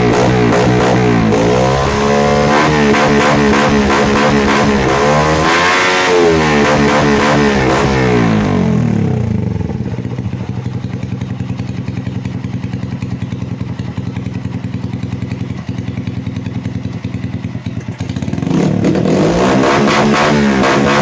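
Honda TMX 125 Alpha's single-cylinder four-stroke engine through an aftermarket muffler, revved up and down several times, then settling to a steady idle with an even putter. Near the end it is revved again.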